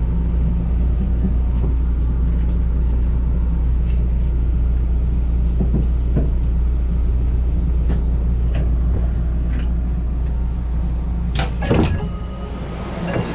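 Steady low rumble of a train, heard inside the passenger carriage. Near the end come a few sharp knocks, and then the rumble drops off.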